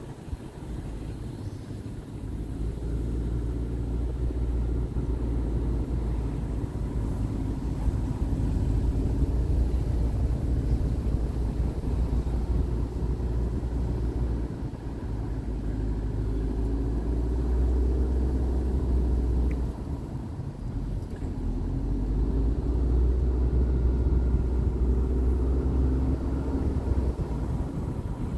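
A car's engine and tyres rumbling low and steady while driving slowly, heard from inside the cabin, swelling and easing a little as the road goes.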